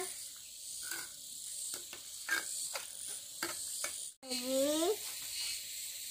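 Insects chirring steadily in the background, with scattered light clicks and knocks. The sound cuts out abruptly about four seconds in, then a brief high, bending call follows.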